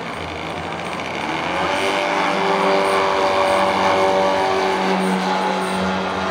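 Radio-controlled model plane's engine run up to full power for its takeoff roll across grass, its pitch rising about a second and a half in and then holding steady and loud as the plane lifts off.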